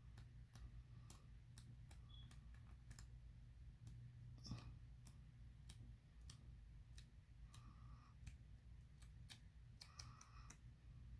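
Faint, irregular clicks and soft taps of the sheets of a 6x6 scrapbook paper pad being flipped through one by one, over a low steady hum.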